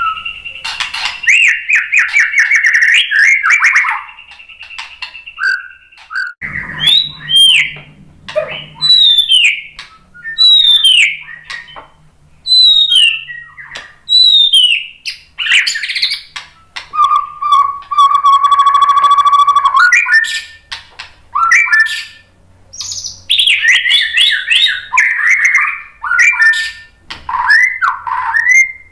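White-rumped shama (murai batu) singing a long, varied song of loud whistled phrases, down-slurred notes and quick trills, with a harsh buzzing passage about two-thirds of the way through. A thin steady high tone runs under the first few seconds.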